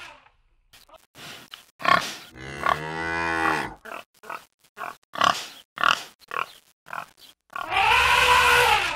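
Cartoon animal sound effects of wild boars and bison: a string of short pig-like grunts and squeals, with a long cattle-like moo about two and a half seconds in and another near the end.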